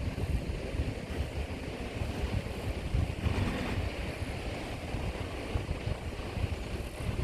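Four-wheel-drive vehicle's engine rumbling steadily as it crawls along an off-road track, with wind buffeting the microphone.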